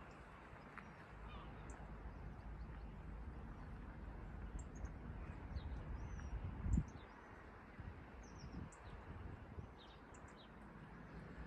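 Small birds calling faintly, scattered short high chirps, over a low outdoor rumble; a single thump stands out a little under seven seconds in.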